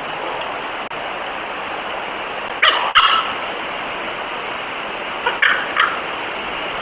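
Wolves giving short high whines and yips: a cry about two and a half seconds in and two more in quick succession about five and a half seconds in, over a steady hiss.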